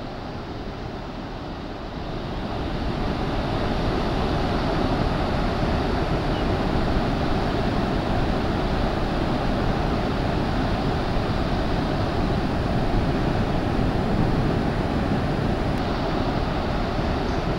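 Sea surf washing onto a beach: a steady rush of breaking waves that grows louder a few seconds in and then holds.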